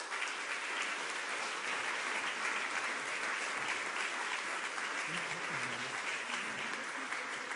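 Large audience applauding steadily at the close of a lecture, a dense sound of many hands clapping at once.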